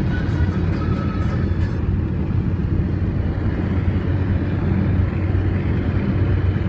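Steady low road and engine rumble of a car driving at highway speed, heard inside the cabin with the windows closed.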